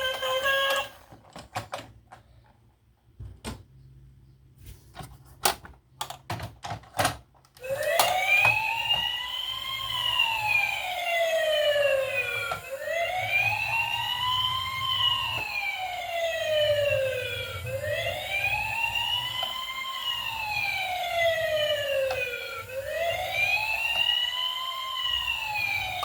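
A siren wailing in slow rise-and-fall sweeps, one about every five seconds, starting about a third of the way in. Before it, a scatter of sharp clicks and knocks.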